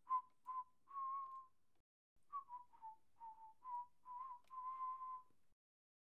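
A person whistling a slow tune: short notes in two phrases with a break about two seconds in, the last note held before it cuts off abruptly.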